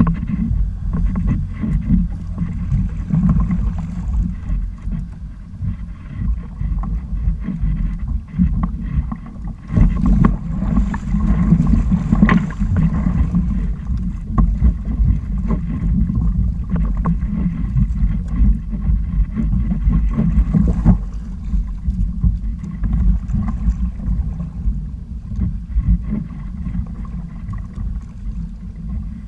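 Wind buffeting the microphone on an outrigger sailing kayak under way, with water splashing and rushing against the hulls in choppy sea. The splashing is busiest between about ten and thirteen seconds in.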